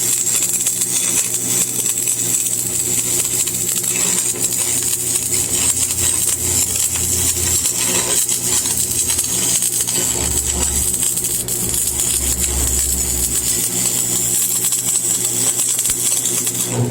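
Stick arc welding with a 6013 electrode: the arc crackles and sizzles steadily, then cuts off abruptly at the very end as the arc is broken.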